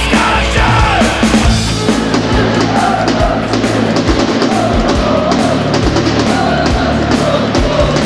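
Loud rock music with a steady, driving drum beat.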